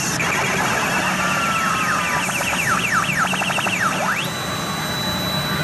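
Sanyo CR Silver Diamond pachinko machine's electronic reach effects: a quick run of short falling chirps, then a rising sweep about four seconds in that settles into a held high tone, over a steady background din.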